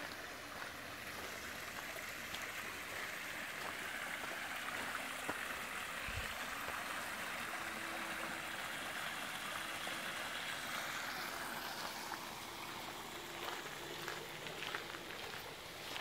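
Small waterfall, creek water splashing and rushing over rocks in a steady wash. It grows louder toward the middle and fades again near the end.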